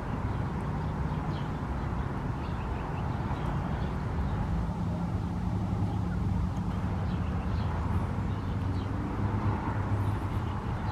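Steady low rumble of distant motor traffic, with faint, short high peeps from ducklings now and then.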